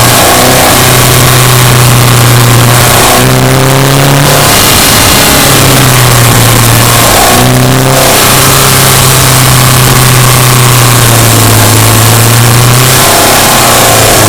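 Subaru Impreza Sport's 2.0-litre flat-four engine pulling under load on the move. Its note rises gradually, then drops back as the throttle is eased, about 3, 7.5 and 13 seconds in, before climbing again, over steady road and wind noise.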